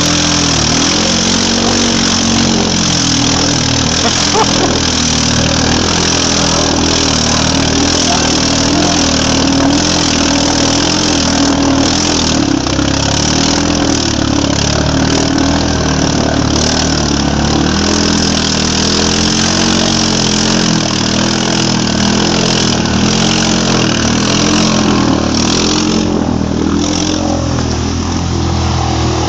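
Yamaha Grizzly 700 ATV's single-cylinder engine revving up and down over and over, its pitch rising and falling in waves about every second, as the quad works through a deep mud rut.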